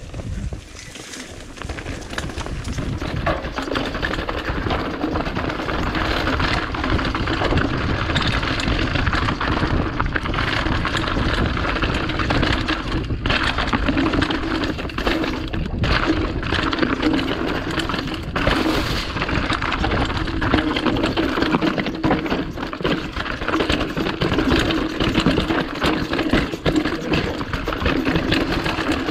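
Mountain bike rattling down a rocky trail: tyres crunching over loose stones and the bike clattering on the bumps, with a steady buzz underneath. It builds up over the first few seconds as the bike picks up speed.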